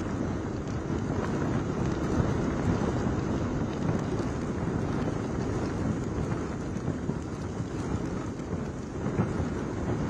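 Cyclone-force wind gusting with rain: a steady low rumble of wind on the microphone under a hiss of rain, swelling and easing slightly with the gusts.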